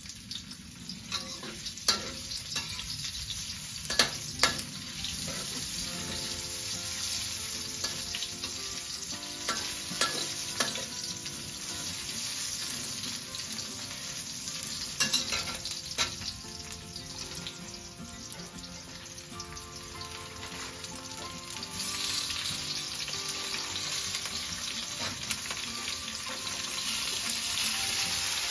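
Mushrooms sizzling and frying in a hot steel wok, stirred with a metal spatula that clicks against the pan several times. The sizzle grows louder in the last few seconds.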